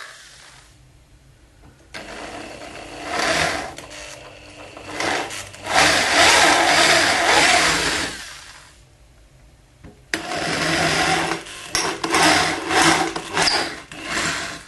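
Handheld electric drill with a 3 mm bit boring pilot holes through the foil-covered chipboard base. It runs in two spells of several seconds each, with a pause of about a second and a half between them, and its loudness rises and falls as the bit cuts.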